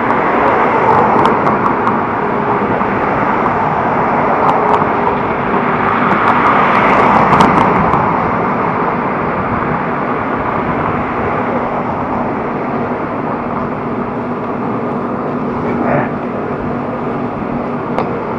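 Road traffic noise, steady, swelling louder for a moment about seven seconds in.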